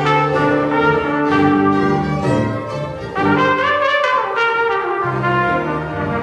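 Live trumpet playing the melody over a small ensemble of violins, flute, tuba and keyboard, with held notes and a steady bass line.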